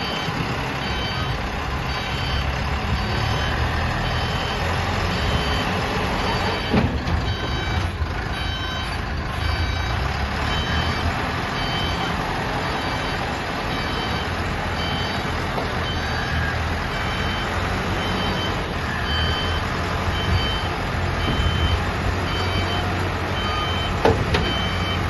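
Concrete mixer's engine running with a steady low rumble while a reversing alarm beeps about once a second, with a couple of brief knocks.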